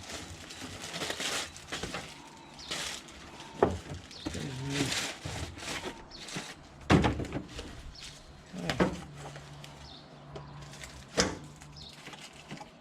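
A fabric tool roll bag being unpacked from its carry bag and handled: irregular rustling and scraping of the bag, with four sharper knocks spread through.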